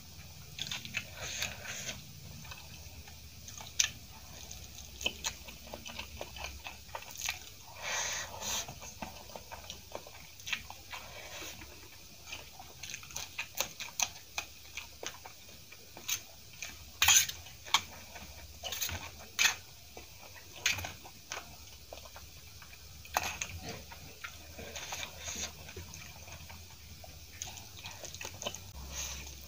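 Close-miked mouth sounds of eating masala Maggi instant noodles: wet chewing with many irregular sharp clicks and smacks.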